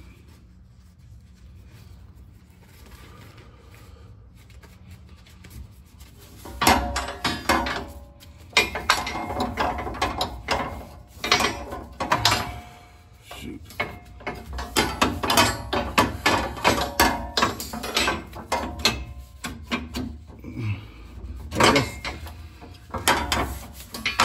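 Rear BMR lowering coil spring being worked out of its spring pocket on the axle of a Buick Grand National, with the shock still mounted: irregular metal scraping, rubbing and clunking that begins about six seconds in after a quiet start.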